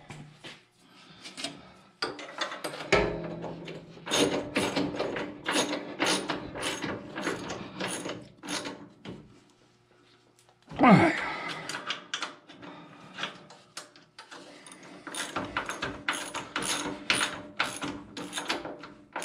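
Hand socket ratchet clicking in quick runs as a bolt is ratcheted in, with a pause midway. About halfway through, a short loud squeak falls in pitch.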